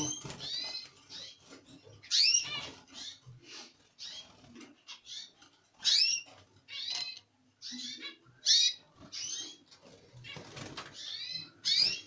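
Red canaries calling in an aviary: a run of short, sharp chirps at irregular intervals, a few of them much louder than the rest.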